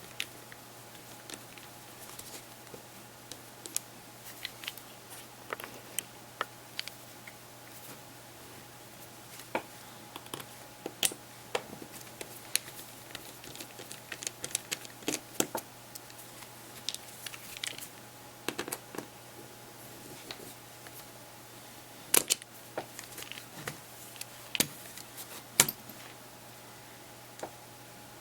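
Small tools and fingers clicking and tapping on the plastic and metal internals of a Samsung Galaxy Player 5.0 as it is taken apart: scattered light ticks and clicks, with a few sharper clicks in the second half.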